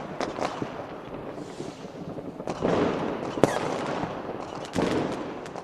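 New Year's Eve fireworks and firecrackers going off: scattered sharp bangs and crackling over a rumbling background, with two rolling booms and one loud crack about three and a half seconds in.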